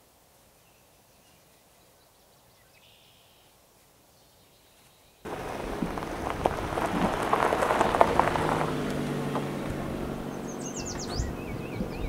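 Near silence with a faint bird call, then, about five seconds in, a Mazda3 hatchback rolling slowly along a gravel lane starts suddenly: tyres crunching over the stones, with the engine running low underneath. Birds chirp near the end.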